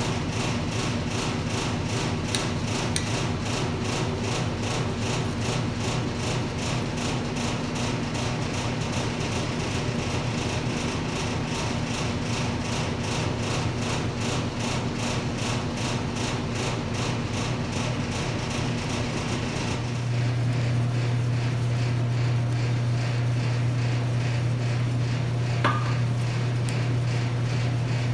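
Coal forge with a motor-driven air blower, running with a steady drone while the coal is lit with a propane torch. About 20 seconds in the drone drops lower and gets louder as more air is fed to the fire, and there is a single light clink near the end.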